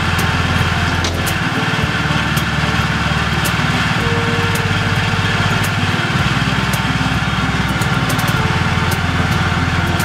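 Engine of a small stand-on compact loader running steadily while it carries a heavy wooden workbench on its forks. Its note shifts a few times, with a few light clanks.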